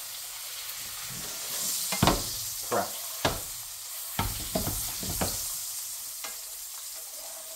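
Steak frying in butter in a frying pan, a steady sizzle. A few sharp knocks and scrapes come between about two and five seconds in.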